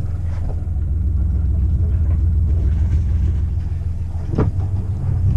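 Sailboat's inboard engine running steadily at slow speed while manoeuvring in harbour, a continuous low rumble.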